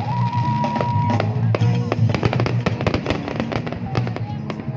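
Aerial fireworks launching and bursting in quick succession, a rapid run of sharp bangs and crackles that thickens about a second and a half in. Loud music plays underneath.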